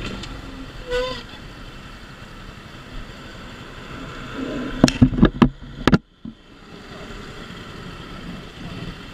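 Dafra Super 50cc moped engine running steadily while stopped at a light. There is a short tooting tone about a second in. Around five seconds in comes a run of loud sharp knocks, the loudest sound here, after which the sound cuts out for a moment.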